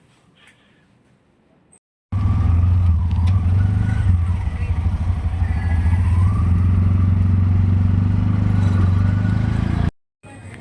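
Motor vehicle engine running steadily with a strong low hum. It cuts in abruptly about two seconds in, after near quiet, and cuts off abruptly just before the end.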